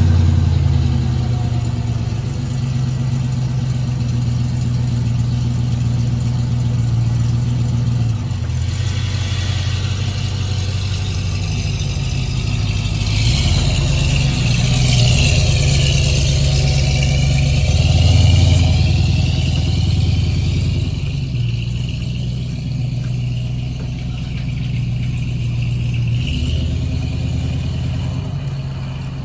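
A vehicle engine running, its low note shifting up and down in pitch several times as the revs change, with a louder higher-pitched sweeping sound for a few seconds in the middle.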